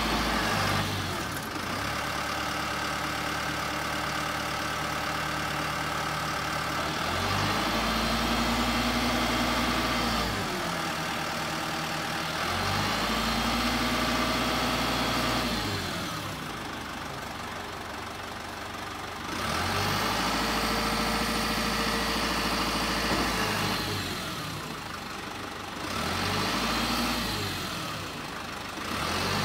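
Hino Dutro's 4.0-litre N04C turbo diesel running to drive the Tadano ZR264 truck crane's hydraulics as the boom is retracted and raised. The engine speeds up for a few seconds about four times and drops back toward idle between the crane movements.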